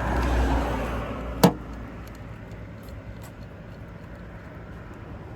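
Lancia Delta HF Integrale Evoluzione I on the move: engine and road rumble that swells over the first second, then eases to a steady lower level. One sharp click sounds about a second and a half in.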